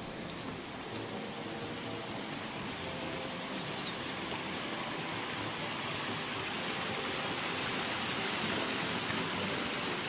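Stream water rushing over small weir steps, a steady rush that grows slightly louder toward the end.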